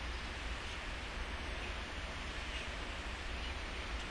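Steady hiss and low hum of a large mosque hall held silent while a packed congregation bows in prayer, with faint soft rustles now and then.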